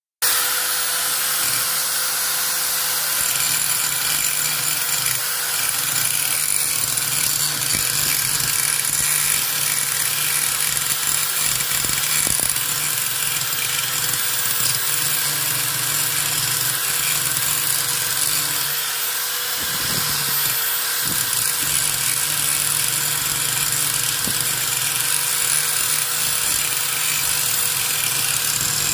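Electric angle grinder running steadily at full speed, its disc grinding into the metal of a spoked motorcycle wheel near the hub and throwing sparks. The motor's whine eases briefly about two-thirds of the way through, then picks back up.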